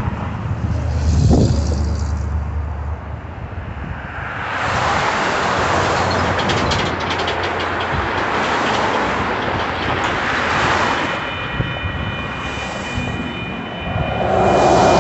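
Road traffic driving past a railroad crossing, cars and trucks swelling and fading one after another. Near the end the crossing signals activate and the warning bell starts ringing for an approaching train.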